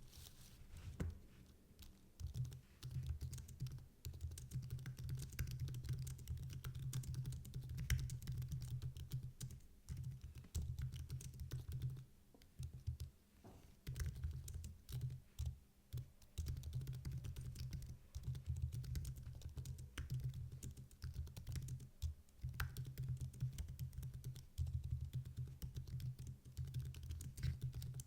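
Typing on an Apple Magic Keyboard: quick, low-profile scissor-switch keystrokes with a dull low tap under each click, in steady runs broken by a few short pauses about halfway through.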